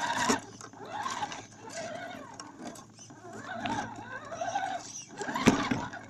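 Radio-controlled scale crawler's electric motor and gearbox whining, rising and falling in pitch as the throttle is worked, with knocks as the truck bumps over the ground, the loudest about five and a half seconds in.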